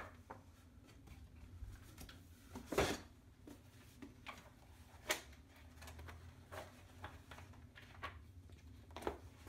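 Quiet room hum with scattered small knocks and paper rustles as a book is pulled from a bookshelf and opened, with one sharper knock about three seconds in.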